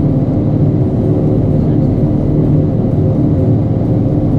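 Twin turbocharged six-cylinder piston engines and propellers of a Cessna 340 II running steadily, heard inside the cockpit.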